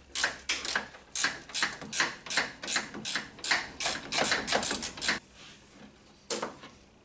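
Ratcheting 10 mm wrench clicking in quick, even strokes, about three clicks a second, as a bolt is backed out; the clicking stops about five seconds in, with one more click near the end.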